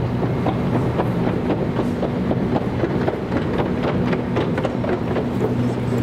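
Metro escalator running: a steady mechanical hum with a fast, irregular clicking clatter over it.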